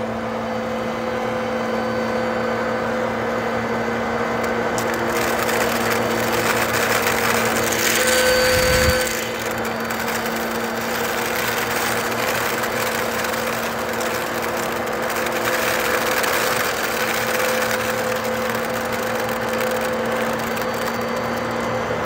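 Vacuum cleaner running steadily with its nozzle on carpet, sucking up small Nerds candies that crackle and rattle as they go up. It gets louder about eight seconds in, then drops back about a second later.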